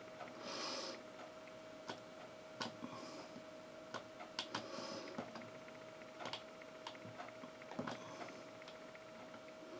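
Faint, irregular small clicks and taps with a few soft breaths, over a steady faint electrical hum.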